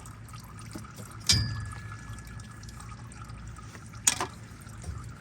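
Old engine oil trickling from the drain into a catch pan. A metallic clank rings on briefly about a second in, and there is a sharp click near the end.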